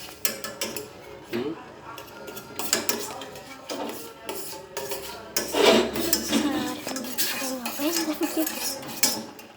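A metal utensil clinking and scraping against a cooking pot in a run of irregular clatters, as a hot drink in the pot is stirred, with a louder burst of clatter about halfway through.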